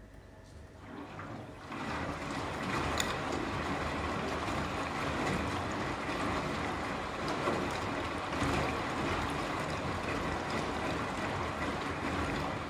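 Beko front-loading washing machine drum starting to tumble about a second in. Water and laundry then slosh and splash steadily inside the drum during the wash.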